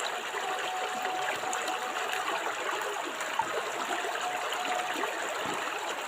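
River water flowing, a steady, unbroken rush.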